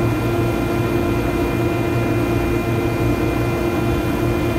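Steady drone of running rooftop machinery, with a constant hum and a low, slightly pulsing rumble under a noisy haze.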